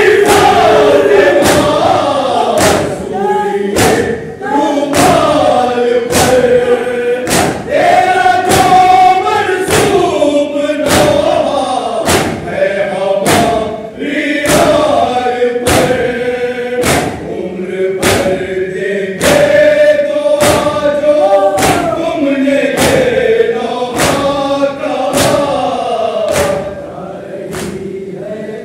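A group of men chants a Shia noha in unison while beating their chests (matam) in a steady beat, about three strikes every two seconds. The chanting grows quieter near the end.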